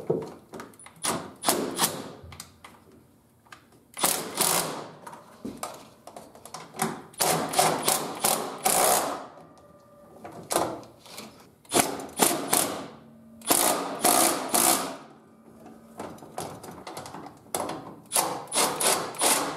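Milwaukee Fuel cordless impact driver hammering in about eight short bursts of rapid clicks, each a second or so long with pauses between, as it zips in the bolts holding the brake booster to the firewall.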